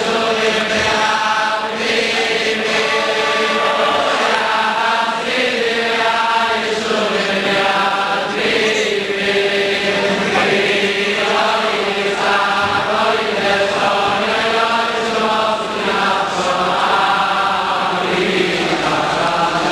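Many men's voices singing a Hasidic niggun together in unison, a continuous chant whose tune rises and falls.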